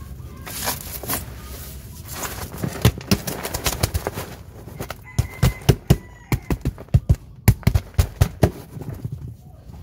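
An upturned styrofoam box packed with composted soil being knocked to shake the soil out onto concrete: a run of short, sharp knocks that come thick and fast in the second half.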